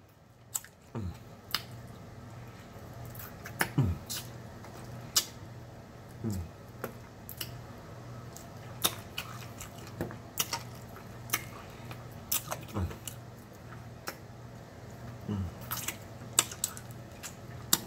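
Close-miked eating sounds: a man chews and sucks meat off a chicken bone, with frequent wet lip smacks and mouth clicks, over a steady low hum.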